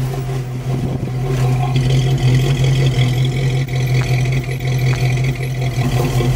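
A 1949 Chevy 3100 pickup's first-generation small-block V8 running steadily at an even pitch, growing a little louder over the first couple of seconds.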